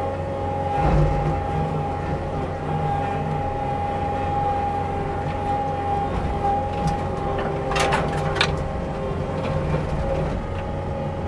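Takeuchi skid steer's diesel engine and forestry mulcher head running steadily with a high, even whine over a low rumble. A few sharp cracks of wood breaking come near the start and about eight seconds in.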